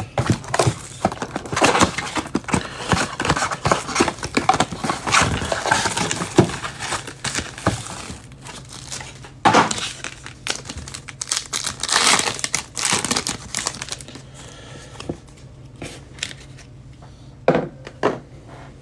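Plastic wrapping on a box of football trading cards crinkling and tearing as it is ripped open, in irregular bursts. The sound is loudest a couple of seconds in and again around the middle, then thins to a few sharp clicks near the end.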